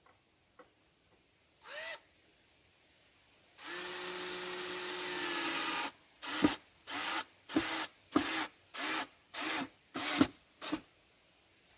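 Power drill driving a screw into wood: a brief blip, then a steady run of about two seconds, then eight short trigger bursts that work the screw in little by little so the brittle wood doesn't split.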